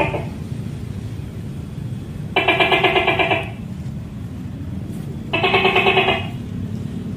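Tokay gecko calling: two loud, rapidly pulsing calls about three seconds apart, each lasting about a second, with the tail of an earlier call at the very start. A steady low rumble runs underneath.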